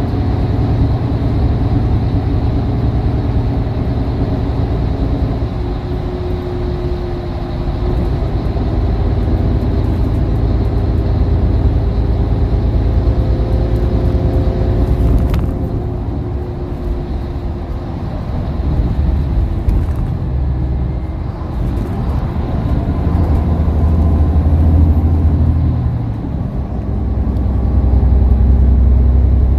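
Volvo B11RT coach heard from inside the passenger cabin while travelling: the six-cylinder diesel engine and tyre and road noise make a steady low rumble. The engine note dips and rises a few times as the load changes.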